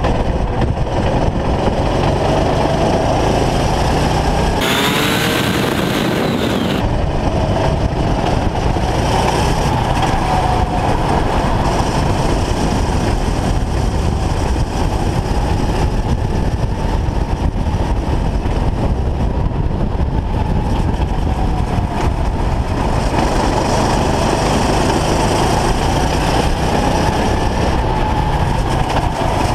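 Racing kart engine running hard, heard from onboard, its pitch rising and falling as the revs change through the corners, over a constant rumble on the microphone. About 5 s in, a hiss of noise rises over it for about two seconds.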